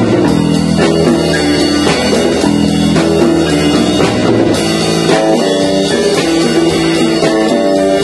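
Loud rock-style music from a band playing live: guitar over drums, continuous throughout.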